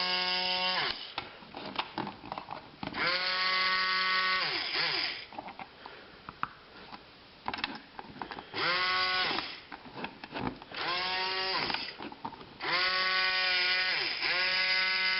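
Kit robotic arm's geared base motor whining in about six short runs of one to two seconds, each rising in pitch as it starts and falling as it stops, with small clicks between runs.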